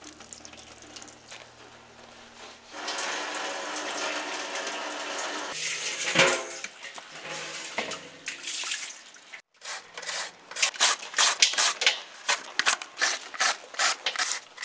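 Brine squeezed from salted chopped mustard greens runs and trickles into a stainless steel basin. After a break, a carrot is rasped on a plastic shredder in quick, even strokes, about two or three a second.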